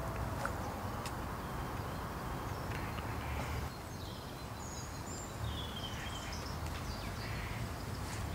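Outdoor ambience: a steady low background rumble, with a few brief high bird chirps about halfway through.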